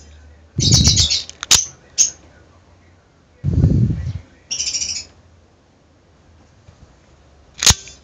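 Out-the-front automatic knife snapping its blade out and back in with its thumb slider: sharp metallic clicks, a cluster about a second in and one loud snap near the end, with dull handling thumps between.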